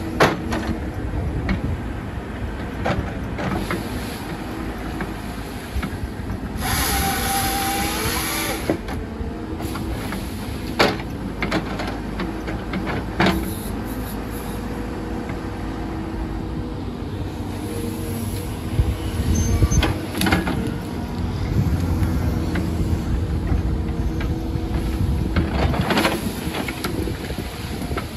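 CAT 311F excavator's diesel engine running steadily under hydraulic load while its grapple saw works through brush, with sharp cracks of branches snapping now and then. About seven seconds in comes a two-second burst of hiss with a whine that rises at its end, the grapple saw's hydraulic chain saw running through a cut.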